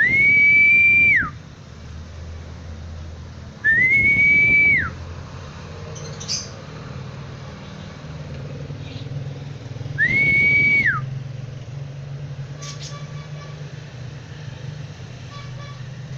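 Three long, level whistles, each about a second long, slightly rising at the start and dropping off at the end. They come about a second in, near 4 s and near 10 s, over a steady low hum, with a few faint short chirps between them.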